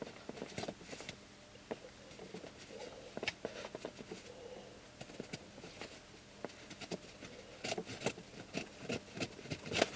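Seatbelt cutter being drawn down through a thick webbing strap, cutting it: a string of irregular scraping clicks and rasps, denser and louder near the end as the strap parts.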